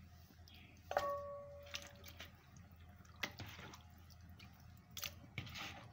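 Raw chicken pieces being put into a glass bowl: a sharp clink about a second in that rings briefly, then scattered soft knocks and wet squelches.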